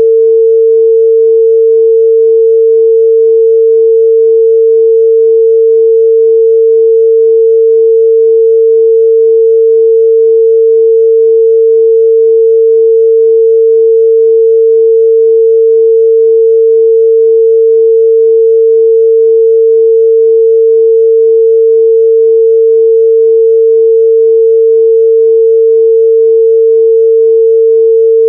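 A pure 451 Hz sine-wave test tone, held steady and loud at one pitch with no overtones.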